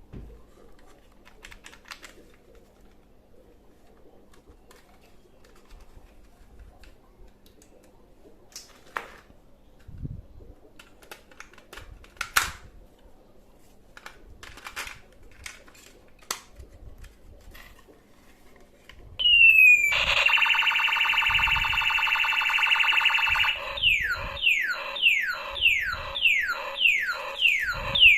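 Electronic sound effect from a battery-powered toy gun: a steady buzzing tone for about three and a half seconds, then a quick run of about nine falling chirps, two a second. Before it come light scattered clicks of plastic toys being handled.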